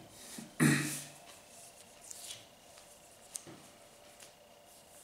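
A man chewing a hot pepper, with one short, sharp cough-like burst from the throat just under a second in, then a few faint mouth clicks while he keeps chewing. The spicy pepper is catching his throat.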